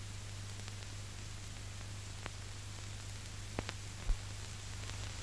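Steady hiss and low hum of an old optical film soundtrack, with a few faint clicks in the second half.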